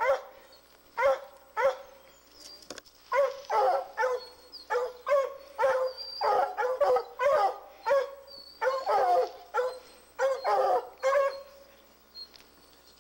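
Treeing Walker hounds barking treed at a mountain lion up a tree: short barks in quick clusters, at times overlapping, the hounds' signal that the cat is treed. The barking stops near the end.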